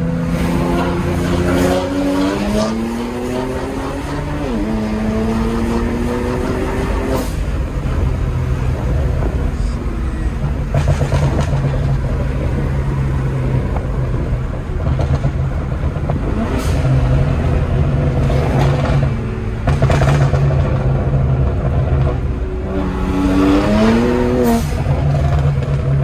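Car engine heard from inside the cabin while driving. Its pitch climbs as it accelerates near the start and again near the end, and it runs steadily at cruise in between.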